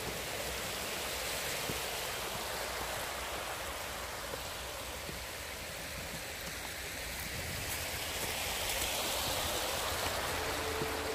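Water running out of a small concrete drainage channel and spilling into the water below, a steady rushing that grows a little louder near the end.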